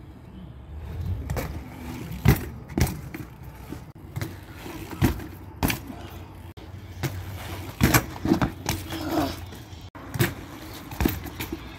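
BMX bike riding on concrete: tyres rolling with a low rumble, broken by a string of sharp clacks and thumps as the bike hits the ground during tricks.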